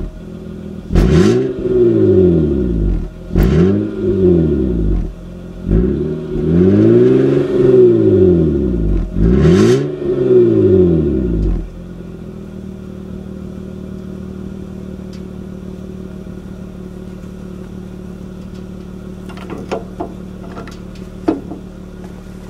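Honda Ridgeline's 3.5-litre V6 heard at the tailpipe, revved up and let fall back about four times, then settling to a steady idle about halfway through. A few light clicks near the end.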